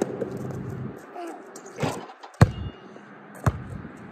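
Basketball being dribbled: several separate bounces about a second apart, the loudest one about two and a half seconds in.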